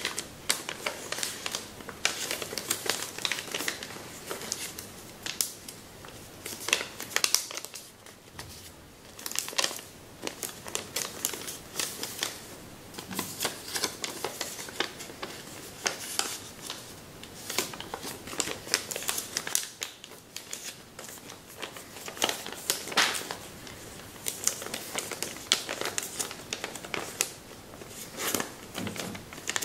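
Kami origami paper rustling and crinkling as hands fold and crease it, a run of irregular sharp crackles.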